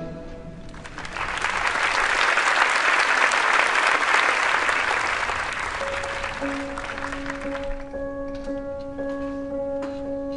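Audience applauding, swelling up about a second in and dying away after about seven seconds. Long held notes of the next piece of music begin underneath as the clapping fades.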